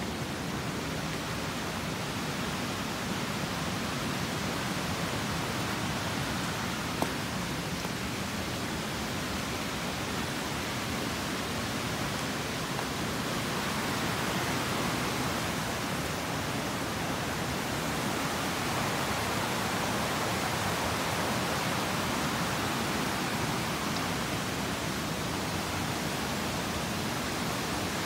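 Steady rush of water, swelling slightly around the middle, with one faint click about a quarter of the way in.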